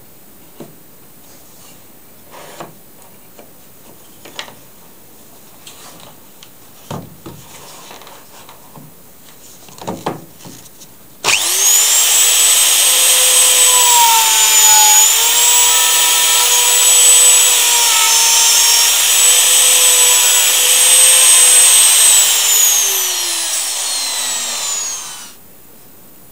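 A few light knocks as the wooden board is set in the jig, then a handheld plunge router starts abruptly and runs with a high whine, cutting a mortise slot in the wood; its pitch dips slightly under load. Near the end it is switched off and its whine falls as it spins down.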